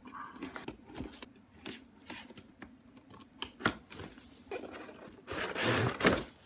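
A cardboard box being opened and its packaging handled: light clicks and scrapes, then a louder stretch of rustling and tearing from about four and a half seconds in, ending in a sharp click.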